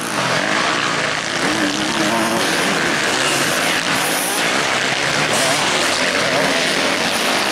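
Motocross dirt-bike engines revving hard, their pitch rising and falling with the throttle.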